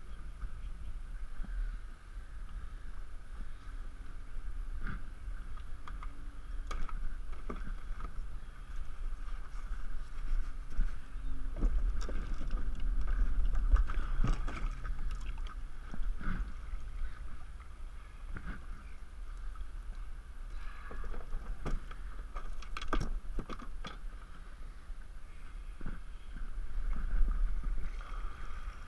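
Irregular knocks and clunks on a Hobie Outback plastic kayak and its gear, with some water splashing, as someone climbs aboard in shallow water. Under it is a steady low rumble of wind on the microphone.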